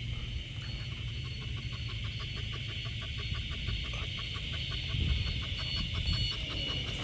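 Giant Schnauzer puppy panting fast and evenly, about five or six breaths a second, over a steady high hiss.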